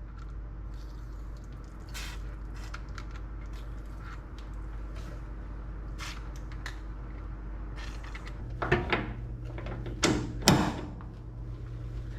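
Metal clicks and clanks of tools being handled as a ball joint press is set up, with a louder run of knocks about nine to eleven seconds in, over a steady low hum.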